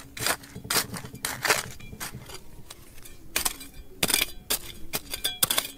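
A metal hand tool striking rock: irregular sharp knocks and clinks, about two a second, some with a brief high ring.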